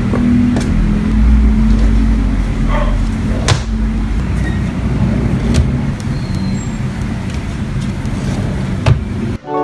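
A motor vehicle running, with a steady low engine rumble and road noise broken by a few sharp clicks. It cuts off suddenly near the end as plucked guitar music starts.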